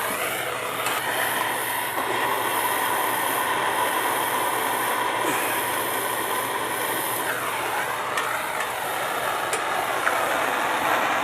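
Plumber's gas torch flame hissing steadily while it heats a copper pipe joint for soldering.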